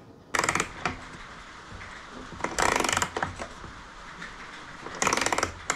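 Mini ratcheting screwdriver being worked, giving three short runs of rapid ratchet clicks, each about half a second long.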